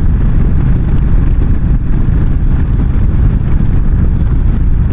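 Wind buffeting the microphone together with the engine and road noise of a Yamaha V-Star 1300 cruising at highway speed: a loud, steady, low rush that flutters rapidly.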